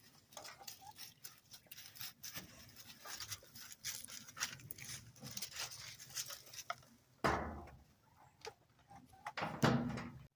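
Farmyard animal sounds amid scattered light taps and clicks, with two louder calls about seven and nine and a half seconds in.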